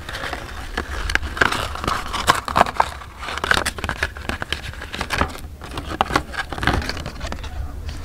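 Paper crackling and crinkling in quick irregular rustles as a letter is opened by hand, over a steady low rumble.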